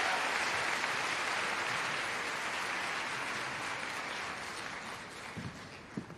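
Audience applauding, the applause fading away steadily; near the end a few low thumps sound through it.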